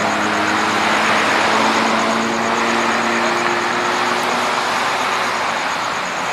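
Motor vehicle running on the street: a steady rush of engine and road noise, its engine note slowly dropping in pitch and fading over the first few seconds.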